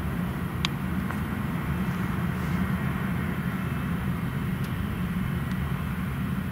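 Pilatus PC-24's twin Williams FJ44 turbofan engines running steadily at taxi power as the jet rolls along the taxiway.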